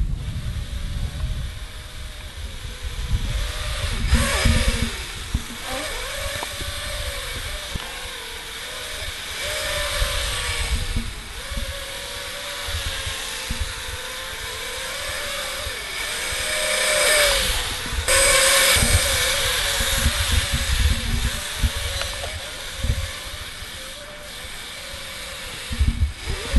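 Small X4 quadcopter drone's propellers whining steadily, the pitch wavering up and down as the throttle changes in flight.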